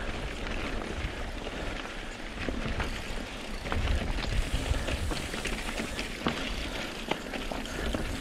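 Mountain bike ridden over a rough, rocky trail: tyres crunching over dirt and rock, with frequent sharp clicks and rattles from the bike, and wind rumbling on the microphone.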